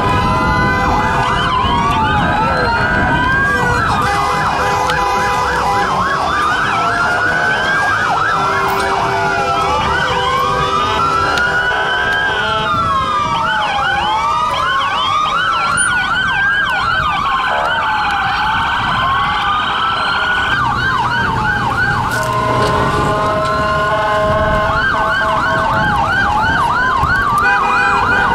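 Several emergency-vehicle sirens sounding together: slow wails rising and falling every few seconds, overlaid with faster, rapidly sweeping yelp tones.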